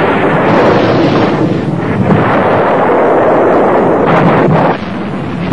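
A loud, continuous rushing rumble, like a big explosion, that drops away sharply near the end.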